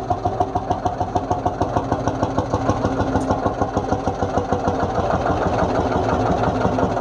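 Single-cylinder two-stroke hot-bulb engine of a Lanz Bulldog-type vintage tractor idling, a steady slow beat of about six pulses a second.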